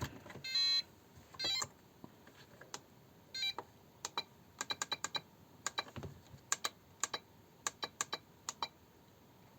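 Buttons on a FlySky FS-i6X radio transmitter being pressed to step through its menus: a few short electronic beeps, then a run of small plastic clicks, several in quick succession.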